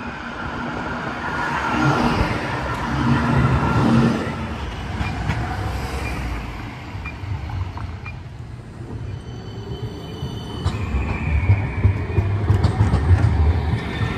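Amsterdam street trams running on street track. A tram's rumble and electric whine rise and fall as it goes by. A high whine cuts off sharply about ten and a half seconds in, and in the last few seconds a tram rolls past close by with a loud, uneven low rumble from its wheels.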